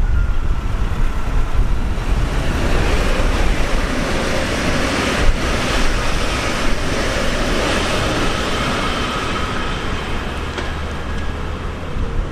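A train passing close by on the line: a steady rushing rumble of wheels on rail that swells in the middle, with a faint high whine and a single click about five seconds in.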